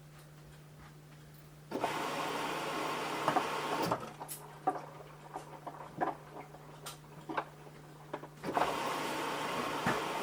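Samsung front-loading washing machine running at the start of its 60 °C cotton cycle: a steady low hum, with a rushing noise that switches on suddenly about two seconds in, eases off after a couple of seconds into scattered clicks and knocks, and comes back near the end.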